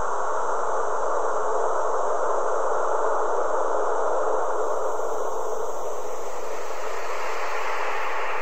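A steady, even rushing noise with no distinct pitch, centred in the middle range, that shifts higher about six seconds in.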